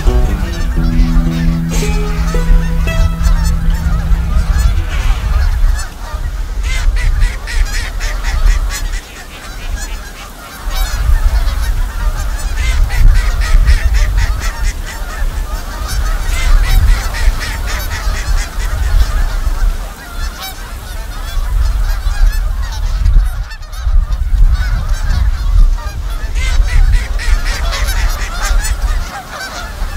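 A flock of geese honking continuously, over a heavy rumble of wind on the microphone.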